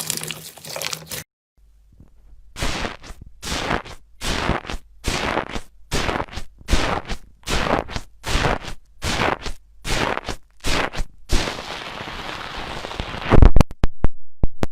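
Slime being squeezed and pressed by hand: a run of short crackly squishes, one about every half second after a brief break about a second in, then a couple of seconds of continuous crackling and a few sharp pops near the end.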